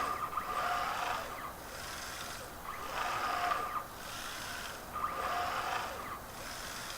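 RepRap Prusa 3D printer's stepper motors moving the axes back and forth, whining at a steady pitch with short rising and falling glides as they speed up and slow down. The cycle repeats about every two and a half seconds.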